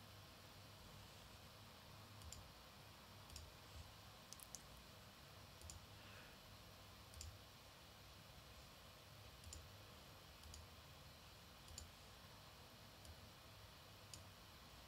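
Faint computer mouse clicks, scattered about once a second, over near silence.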